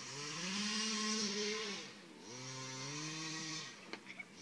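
Radio-controlled car running hard across dirt and grass: its small motor revs up and holds a high buzz, drops off, then revs up and holds again. There is hiss from the tyres and dirt underneath, and a couple of sharp clicks near the end.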